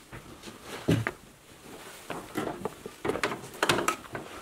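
Footsteps climbing a staircase of wooden slab treads: a handful of separate knocks and thumps as each step lands.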